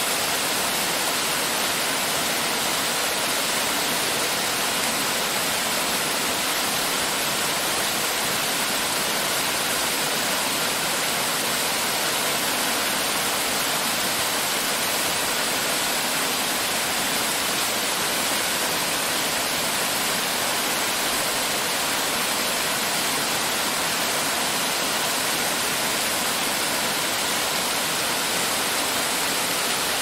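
Waterfall: a steady, unbroken rush of crashing water, mostly high hiss with little low rumble.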